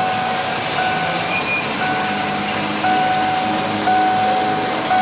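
1994 Ford F-150 Lightning's warning chime sounding with the door open: a steady electronic beep repeating about once a second.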